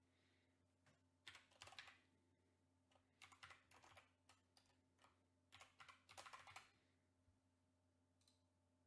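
Faint typing on a computer keyboard: three short bursts of key clicks. A single faint click follows near the end.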